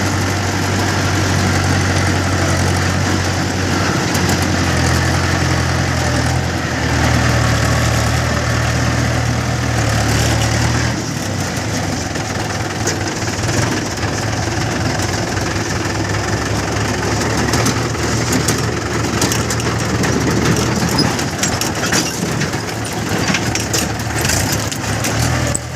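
Heavy diesel engine of a backhoe loader or tractor running loud and steady, its revs rising in steps and then dropping back to a lower speed about 11 seconds in. Scattered sharp knocks and clatters come through in the second half.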